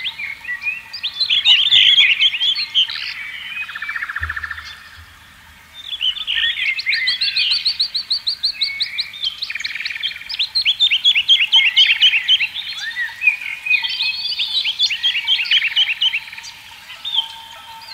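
Several songbirds chirping and trilling at once, a dense, busy birdsong chorus of quick repeated notes and fast trills with hardly a pause.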